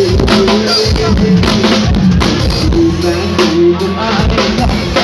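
Loud amplified music from a Thai rot hae sound-truck band through large speaker stacks: a steady drum beat under a melody line.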